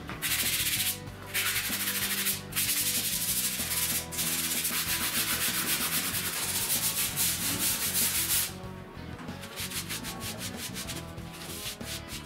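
Hand sanding block scrubbing back and forth along a wooden strip in long, loud strokes with a few brief pauses, then fainter, quicker strokes from about two-thirds of the way in.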